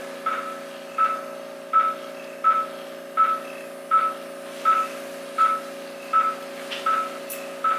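Operating-room patient monitor beeping with each heartbeat: short beeps of one steady pitch, about 1.4 a second, over a steady hum of equipment.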